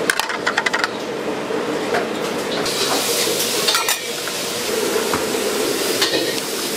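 Stir-frying in a wok with a metal ladle. It opens with a quick run of sharp clanks of ladle on wok, then steady sizzling with a few more clinks and scrapes.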